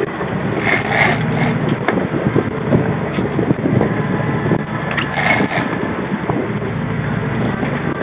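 Sportfishing boat's engine running steadily under way, mixed with wind and water noise and a few irregular faint knocks.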